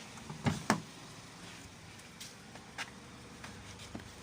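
Faint steady idle of the Nissan Grand Livina's engine, with a few sharp knocks, the two loudest close together about half a second in.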